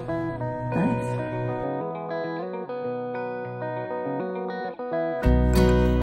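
Background music led by guitar. The bass drops out after about a second and a half, and a fuller, louder beat with drums comes in near the end.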